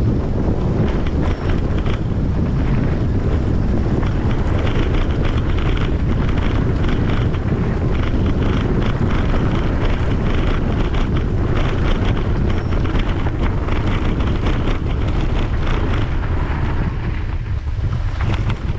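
Heavy wind noise buffeting the handlebar camera's microphone as the mountain bike is ridden at speed, with the bike rattling and clattering over the rough grass and gravel track.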